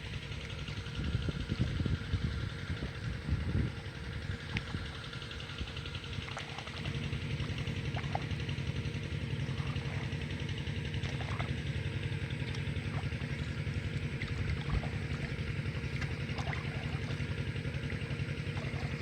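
A small engine idling steadily with an even low pulsing beat. There are a few irregular louder noises in the first few seconds.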